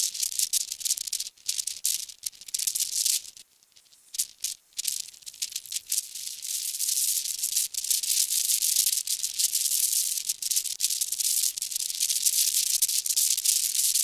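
High-pitched hiss with a crackly, rustling texture, steady apart from a brief dropout about three and a half to five seconds in.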